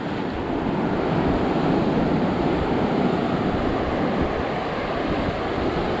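Ocean surf: waves breaking and washing in at the shoreline, a steady rushing noise.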